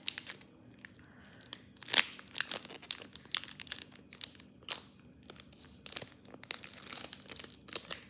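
Pokémon card booster pack wrapper being crinkled and torn open: a run of short, sharp crackles, the loudest about two seconds in, with a denser stretch of rustling near the end.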